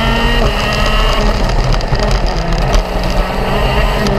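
Go-kart engine running hard at high revs, its pitch dipping about a second in and then climbing slowly again, with wind rumbling on the onboard microphone.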